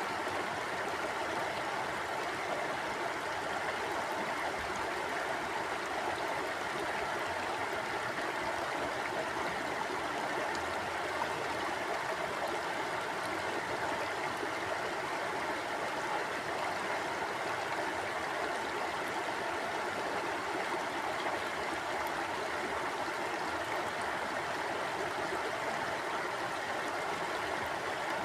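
Steady flowing stream water rushing and gurgling over rocks, an even continuous wash of sound with no breaks.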